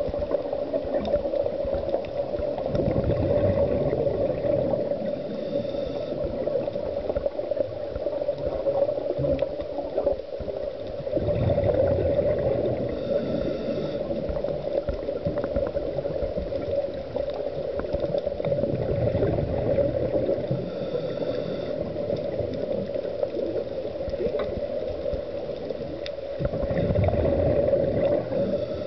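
Scuba breathing through a regulator heard underwater: surges of exhaled bubbles about every eight seconds, each followed by a short hiss, over a steady hum.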